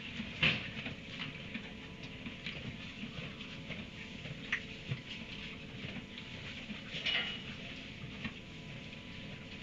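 An equine eating hay in a straw-bedded stall: irregular crunching and rustling, with a slightly louder crunch about half a second in and again near seven seconds. A faint steady electrical hum runs underneath.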